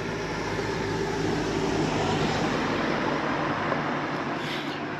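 A car driving past, its engine and tyre noise swelling to a peak about two seconds in and then slowly fading.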